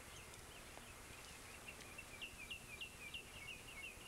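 Faint bird chirping: a quick series of short, falling notes, about three a second, starting a little over a second in, over a low outdoor hiss.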